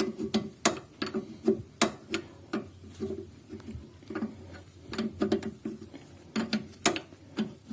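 Wrench tightening the lock nut on an Alfa Romeo 75's front suspension: a run of sharp metallic clicks, a few a second and unevenly spaced.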